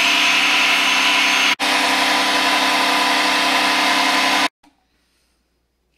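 Electric food processor running at speed, blending peaches into a purée: a steady motor whine over a dense whirr. It cuts out for an instant about a second and a half in, then stops suddenly near the end.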